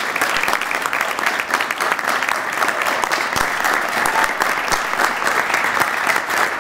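Audience applauding, many people clapping steadily without letup.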